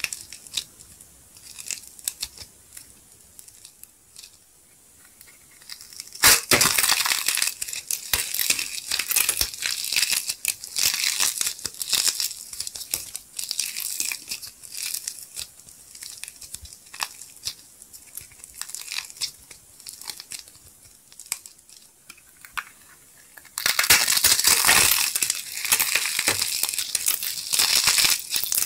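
Hands squeezing and tearing apart blue clay coated in gold glitter flakes, making crinkly tearing and crackling. It is soft and sparse at first, with a sharp snap about six seconds in, then turns into steady crackling that grows louder and denser near the end.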